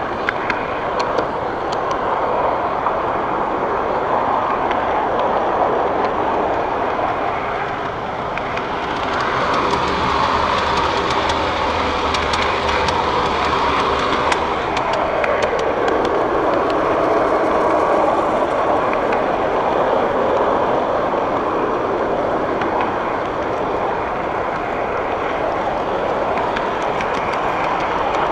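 Large-scale model train running along its track with the camera riding on board: a steady rolling rattle of wheels on rail with scattered clicks. Partway through, a low hum joins in and a tone in the running noise slides down in pitch.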